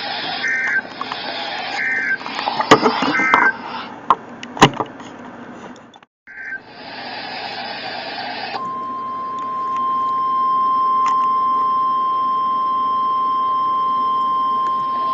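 NOAA Weather Radio alert signalling: several short, harsh buzzing data bursts over radio static with a few sharp clicks, then, about 8.5 seconds in, the steady single-pitch 1050 Hz warning alarm tone starts and holds, announcing the next tornado warning.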